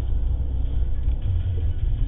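Steady low rumble of a car being driven at around 60 km/h, tyre and engine noise heard from inside the cabin.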